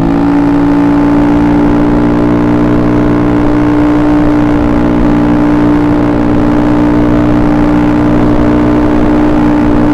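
Carbureted Honda Beat scooter's engine running at a steady, fairly high speed, its pitch held level throughout.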